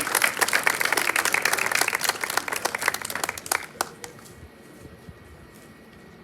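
Audience applause that thins out and stops about four seconds in.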